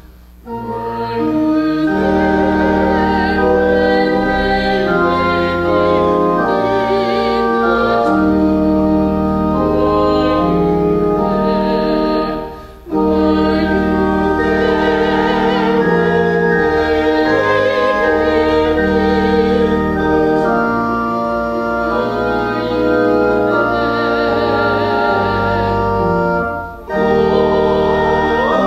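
A woman singing solo with organ accompaniment, in long held notes with vibrato. The music breaks off briefly twice, about 13 and 27 seconds in, between phrases.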